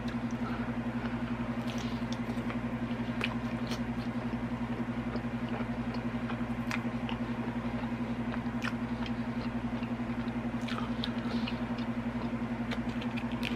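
A person chewing a bite of deep dish pepperoni pizza with ranch, with scattered small wet mouth clicks and crunches. A steady low hum runs underneath.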